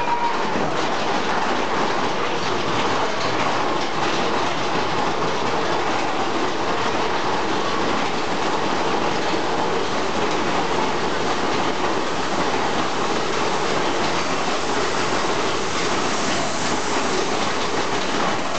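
Big Thunder Mountain Railroad mine-train roller coaster running along its track: a steady, even rattle and rumble of the cars' wheels on the rails.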